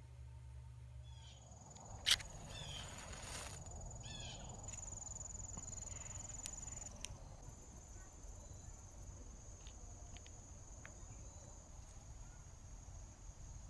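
Insects, cricket-like, trilling steadily on one high even tone, with a single sharp click about two seconds in.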